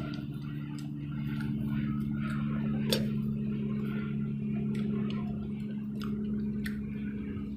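Light clicks and taps of a fork against a noodle bowl while eating, with one sharper click about three seconds in, over a steady low hum.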